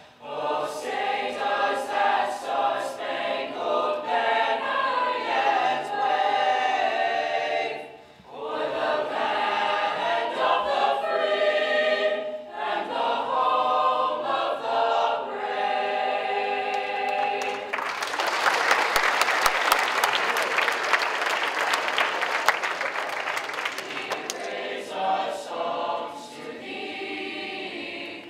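Mixed high-school choir singing, with brief gaps between phrases. About 18 seconds in the audience claps for several seconds, then the choir starts singing again.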